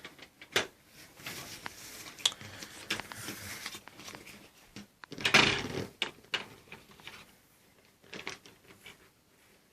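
Scattered clicks, knocks and rustling of things being handled, with a louder scraping rush about five seconds in; no motor running.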